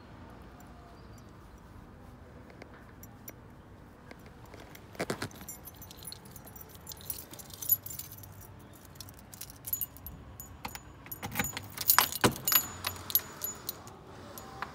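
A bunch of keys jangling in scattered bursts with small clicks, starting about five seconds in and loudest around twelve seconds in.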